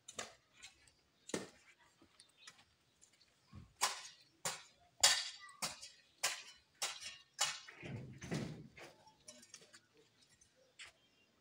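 Irregular sharp metallic clinks and knocks from construction workers' hand tools, the loudest about five seconds in, with a duller scraping sound about eight seconds in.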